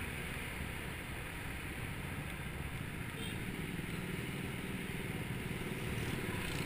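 Motor scooter engine running steadily while riding along a road, under wind and road noise on the camera's microphone.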